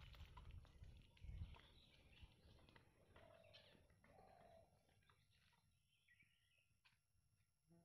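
Faint bird calls over quiet outdoor ambience: two short low notes about three and four seconds in, and a higher warbling call later. There is some low rumbling noise in the first second or so.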